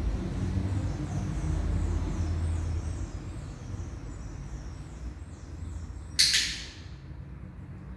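A single sharp click about six seconds in, the loudest sound, with a short ringing tail: a training clicker marking the moment for a treat while the clicker is being charged. Before it, a rapid run of high, falling chirps over a low steady rumble.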